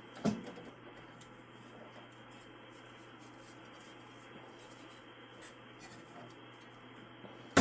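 Faint scraping and handling of a hand tool working on a signal generator's chassis, with a click shortly after the start and a sharp, louder click near the end.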